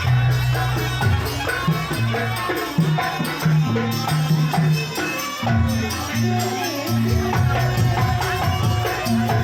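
Jaranan buto music from a live ensemble: drum strokes and a rattling jingle over low sustained notes that change pitch every second or so, with a melody line above.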